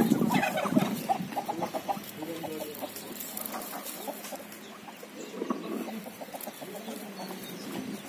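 Domestic turkeys calling: a loud gobble trails off in the first second, then a run of quick clucks and softer, lower calls go on at a lower level.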